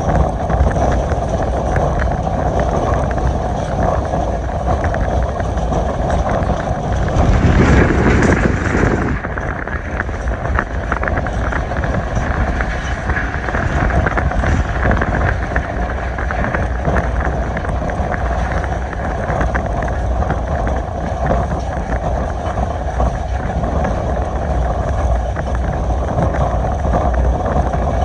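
Express passenger train running at speed: steady rolling rumble with wind buffeting the microphone, swelling into a louder rush for a couple of seconds about seven seconds in.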